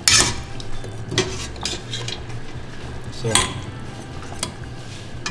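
Metal ladle clinking and scraping against a stainless-steel pot while stirring soup, with a few sharp knocks, the loudest right at the start and about three and a half seconds in.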